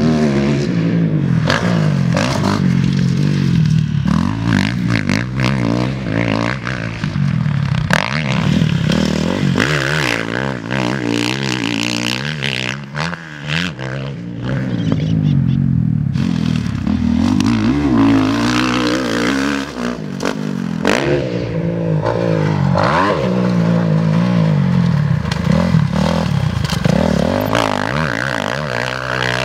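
Motocross bike engine revving hard and easing off again and again, its pitch rising and falling with throttle and gear changes, with clattering and scraping noises mixed in.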